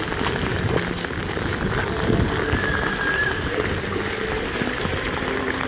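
Heavy rain falling, with wind buffeting the microphone in a steady rumble.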